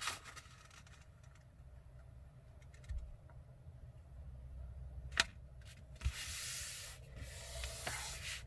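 A sheet of paper being folded in half and its crease pressed flat: soft rubbing and scraping of fingers sliding along the paper, with a single sharp click about five seconds in.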